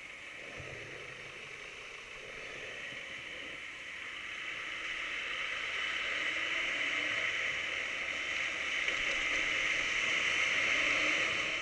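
Road and tyre noise of a vehicle driving on a wet street, heard from inside the cabin, growing steadily louder as it pulls away and gathers speed.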